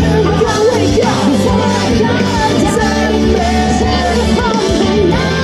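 A rock band playing live, with singing over the music.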